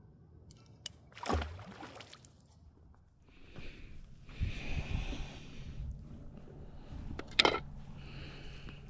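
Water splashing and sloshing at the edge of a river or lake as a fish is released and a fishing line is handled: a sharp splash about a second in, a stretch of sloshing, and another sharp splash near the end.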